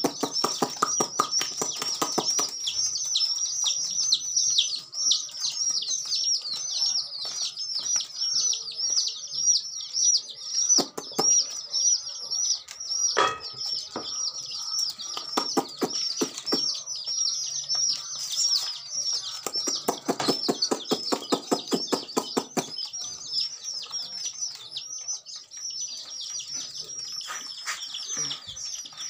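A flock of chicks peeping without a break: many short, high calls that fall in pitch and overlap, with scattered clicks underneath.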